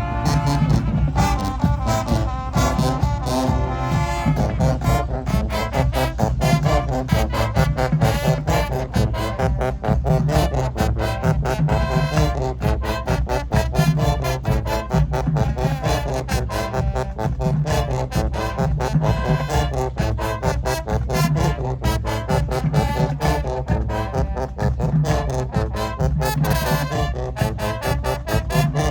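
Marching band music: a brass section with trombones and trumpets playing over a steady drum beat and heavy low brass.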